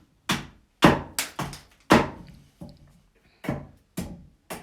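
An axe chopping into a fresh, unseasoned wood blank, hewing it roughly cylindrical: a steady run of about nine sharp strikes, roughly two a second, two of them louder about one and two seconds in.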